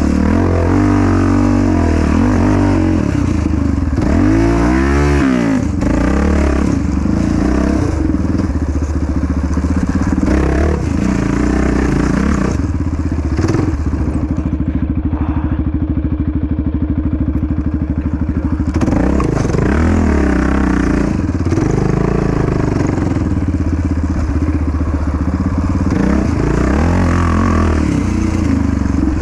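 Yamaha Raptor 700 quad's single-cylinder four-stroke engine under race throttle, its pitch rising and falling again and again. About halfway through it holds a steady note for roughly four seconds before it starts revving up and down again.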